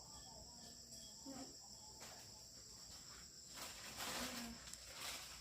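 Steady high-pitched chorus of insects chirring in the background, with louder rustling noises joining it a little past halfway.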